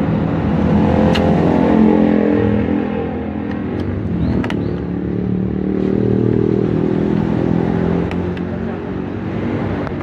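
A motor vehicle's engine running close by, its pitch slowly sinking and then rising again, with a few faint clicks.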